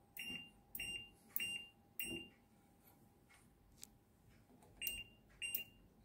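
IFB TL-SDG 9.5 kg Aqua top-load washing machine's control panel beeping as its program knob is turned, one short high beep per step. Four beeps come in the first two seconds, then a pause, then two more near the end.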